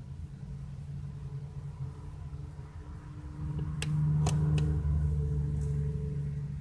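A steady low mechanical hum that grows louder about three seconds in, with three or four sharp clicks shortly after.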